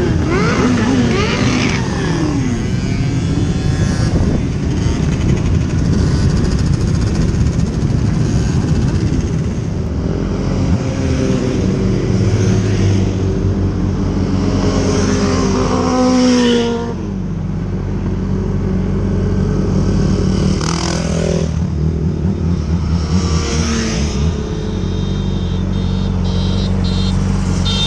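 Motorcycle engines of a large group ride: first riding along among the pack, then a steady engine running close by while other motorcycles pass one after another, their pitch dropping as each goes by.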